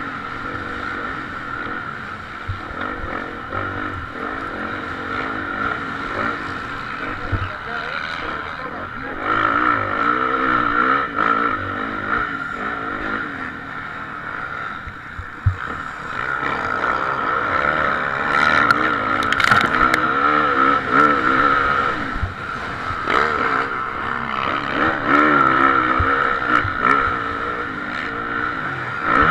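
Dirt bike engine heard from the onboard camera, revving up and falling back again and again through the gears as the bike is ridden hard round a motocross track. It gets louder about nine seconds in and again past the middle, with a few short knocks.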